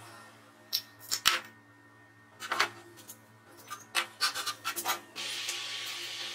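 Loose metal parts of a dismantled cut-off saw clinking, scraping and being set down on a wooden workbench in several short clusters of clatter. Near the end a steady hiss begins.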